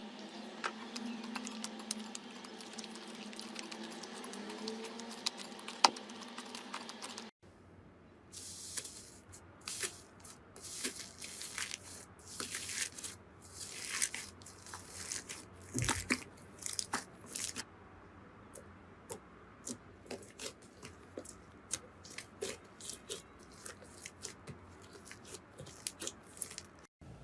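Slime being squeezed and poked by hand, making many short, irregular squishing and crunching crackles. For the first seven seconds there is only a steady hiss with a single sharp click; the crackles start after a sudden cut.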